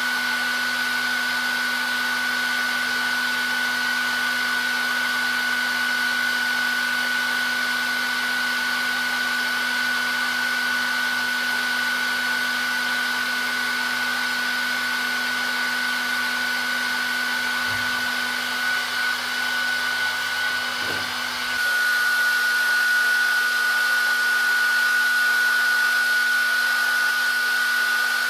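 Hair dryer running steadily: rushing air with a constant high motor whine. About three-quarters of the way through, the sound shifts slightly, getting a little louder as the whine drops a touch in pitch.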